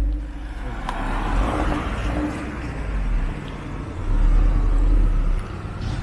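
Toyota GT86's naturally aspirated 2.0-litre flat-four boxer engine, with aftermarket extractor headers, running at low revs as the car is driven onto the dyno: a steady low rumble that grows louder about four seconds in.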